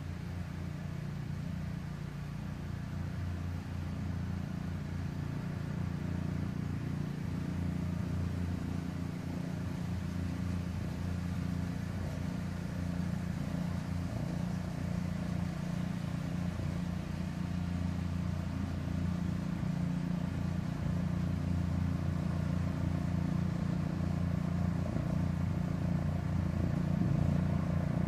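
A vehicle engine running steadily at low speed, slowly growing louder as it approaches across the field.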